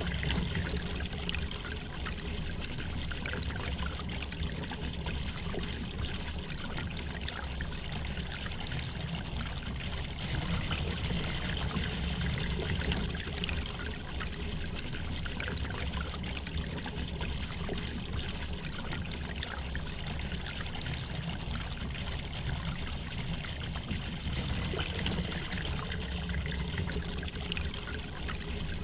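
A gently flowing river: a steady, even rush of water.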